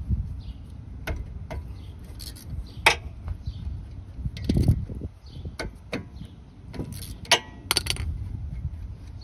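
Irregular metallic clicks and clinks of a ratchet and 14 mm socket loosening and removing the rear brake caliper's guide-pin bolts, with the sharpest clicks about three seconds in and again near the end.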